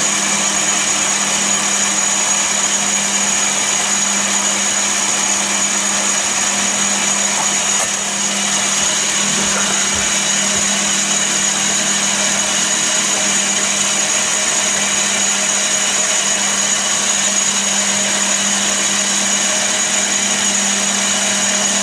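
Chester DB10 metal lathe running steadily, its chuck spinning, with a steady hum and a high whine.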